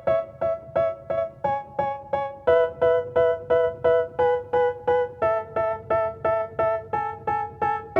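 Background music: a piano-like keyboard plays short repeated chords at a steady beat of about three a second, the chords changing every few seconds.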